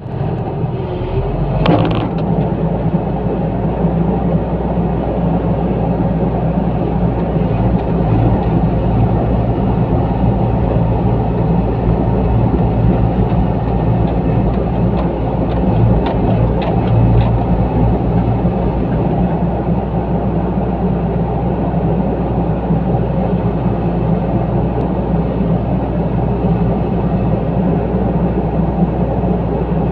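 Excavator engine running steadily, with a sharp knock about two seconds in.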